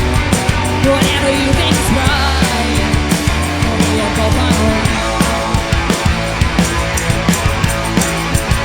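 A live rock band playing: guitar, bass guitar and drum kit, with steady drum hits over sustained bass and guitar notes.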